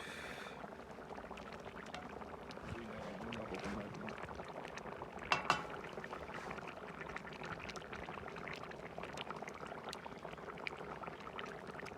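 Water and rice simmering in a plov kazan over a wood fire: a steady bubbling hiss with many small crackles, and a brief louder clatter about five seconds in.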